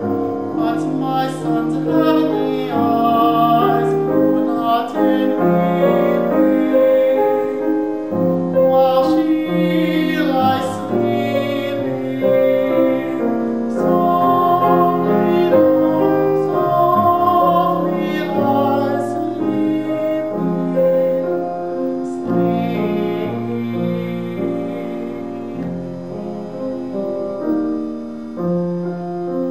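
A trained classical singer performing with piano accompaniment, sustained notes sung with vibrato over piano chords.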